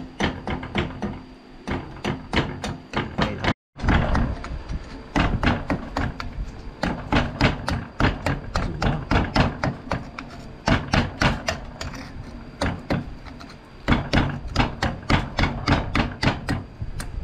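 Hammer blows on a steel punch or chisel against a rusty knife blade clamped in a steel bench vise, struck in a quick run of about three blows a second from about four seconds in.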